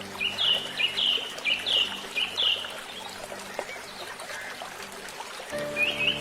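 A bird calling: short, high notes that fall in pitch, repeated about twice a second for the first few seconds, then starting up again near the end.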